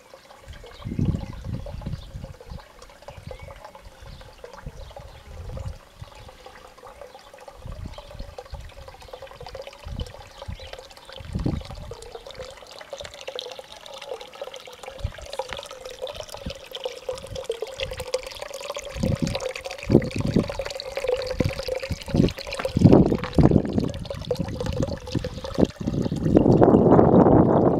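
Water trickling and splashing in a carved bluestone fountain as it runs through the channel and spills from the sculpted head into the basin below, with irregular low thumps. The water grows louder near the end.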